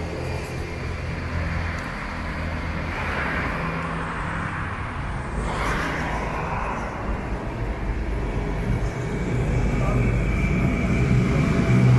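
Outdoor street noise: a steady low rumble of vehicles with indistinct voices, growing a little louder near the end.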